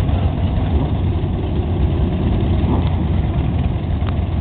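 Several motorcycles idling together in a steady low rumble.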